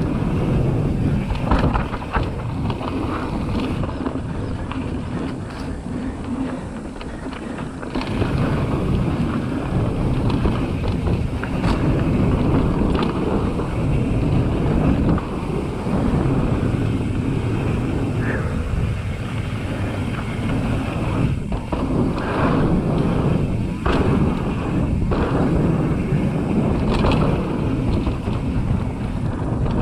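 Wind buffeting the microphone on a mountain bike descending a dry dirt singletrack, over the rumble of knobbly tyres on the dirt. Scattered knocks and rattles come from the bike over the rough trail, more of them near the end.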